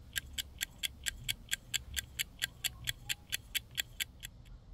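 A clock ticking quickly and evenly, about four to five sharp ticks a second, stopping shortly before the end.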